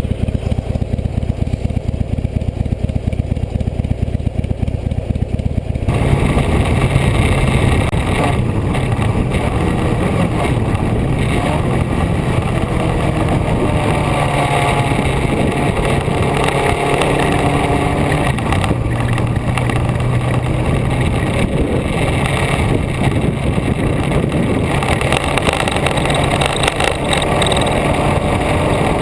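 Vehicle engine running with a low, pulsing note, then about six seconds in a loud rush of wind noise on the microphone sets in over a steady engine drone as the vehicle drives at speed.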